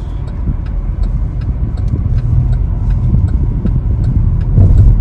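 Car running, heard from inside the cabin: a steady low engine and road rumble, with a faint regular ticking over it.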